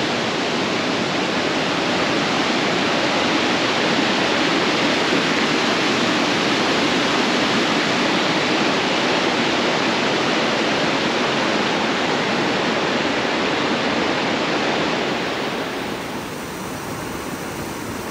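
Creek water rushing and splashing over rocks and small cascades of a waterfall: a loud, steady rush that drops to a softer level about fifteen seconds in.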